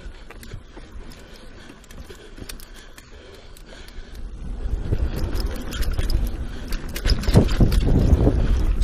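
Mountain bike descending a dirt singletrack: tyre noise on the dirt with short clicks and rattles from the bike. It gets louder about halfway through, with a heavy low rumble and denser rattling near the end.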